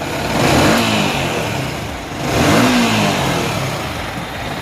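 Yamaha R15 V3's single-cylinder engine blipped twice with the throttle, rising and falling in pitch each time, then running more steadily toward idle. This is its test run after an engine repair, and the repaired engine is judged to sound very good.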